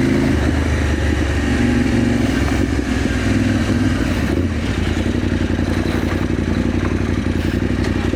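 KTM 790 Adventure R's parallel-twin engine running as the bike rides a dirt road. About halfway through the revs drop to a slower, pulsing low-speed note as the bike slows down.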